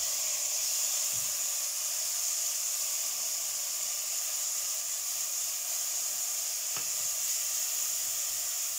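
Chopped onion and garlic sizzling steadily in hot olive oil in a pot, with a single light tap about two-thirds of the way through.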